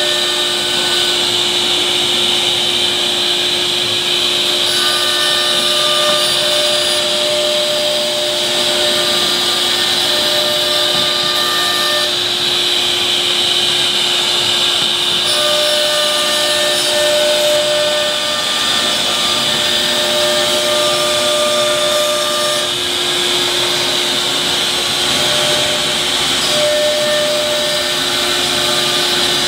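CNC router spindle cutting grooves into a wooden sheet, with its dust extraction running: a loud, steady high whine over a lower hum. A second pitched whine comes and goes every few seconds as the cutting head moves.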